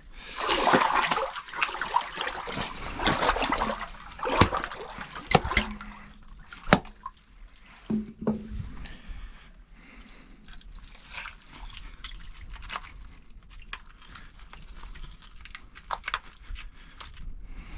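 Water sloshing and dripping in an ice-fishing hole as line and fish come up through it, with sharp knocks and clicks. The splashing is loudest in the first six seconds or so, then gives way to faint crackling and scattered clicks.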